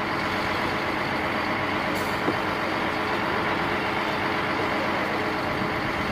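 Truck engine running with a steady, dense rumble and hiss.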